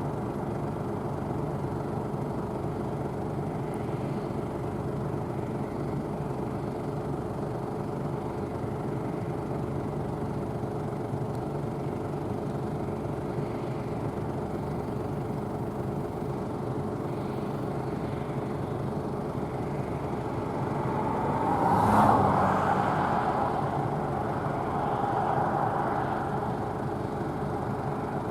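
Claas Tucano 570 combine harvester running steadily while harvesting barley, a constant engine and machinery hum. Near the end the sound swells twice, with a sharp knock at the top of the first swell.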